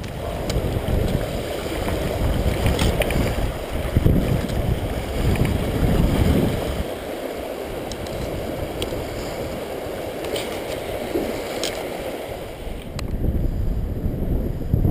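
Wind buffeting the microphone over the rush of a shallow river, an uneven low rumble with a few faint clicks. It gets louder near the end.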